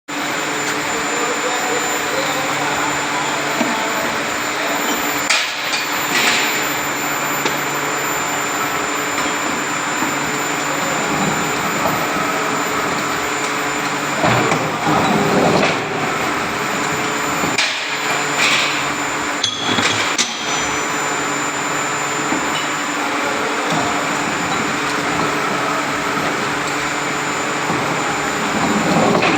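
Forging press running: a steady mechanical drone with a low hum, broken by several loud blows, most of them bunched in the middle.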